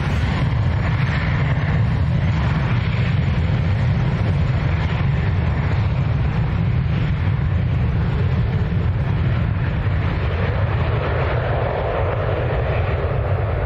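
Jet2 Boeing 737's twin CFM56 turbofans running at take-off thrust as the airliner accelerates down the runway: a loud, steady, heavy low rumble, with a higher rushing sound building about ten seconds in as the jet pulls away.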